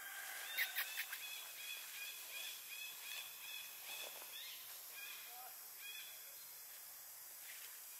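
A bird calling outdoors: a run of short, high chirps repeated about two or three times a second, fading after about six seconds. A few sharp clicks come just before the chirps begin.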